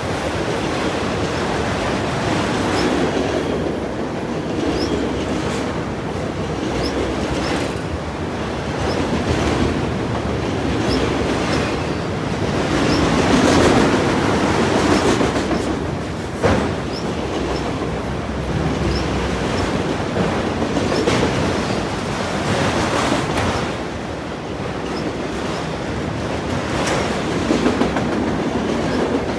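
Freight train cars rolling past: a steady rumble of wheels on rail, with clickety-clack over the rail joints, a few faint brief wheel squeals, and one sharp clunk about halfway through.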